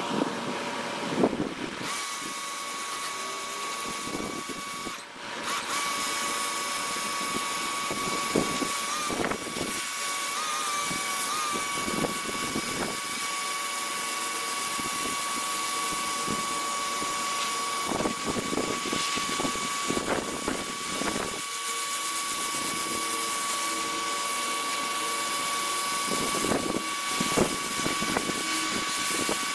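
Electric pressure washer's motor and pump running with a steady high whine while its spray hisses against concrete, sped up in fast-motion playback. The whine breaks off briefly about five seconds in.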